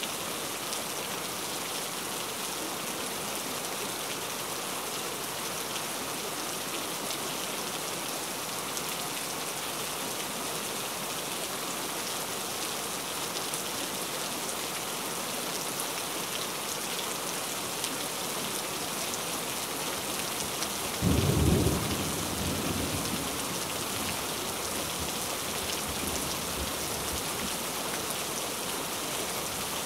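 Steady heavy rain hissing, with a single thunderclap about two-thirds of the way through that rumbles away over a few seconds.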